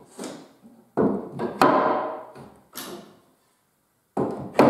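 Tulip wood (poplar) frame stiles and rails knocking together and on the bench as the mortise and tenon joints are dry-fitted by hand. Several sharp wooden knocks, the loudest near the end.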